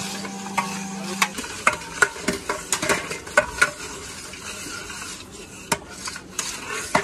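Long metal ladles stirring food in two large steel cooking pots, scraping along the pot sides and knocking against the rims at irregular moments.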